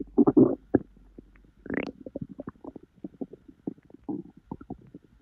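Stomach and intestinal gurgling from an overfull, bloated belly digesting a heavy junk-food meal. A loud gurgle comes just after the start, then a rising squeal about two seconds in, then a run of quick little pops and bubbling clicks.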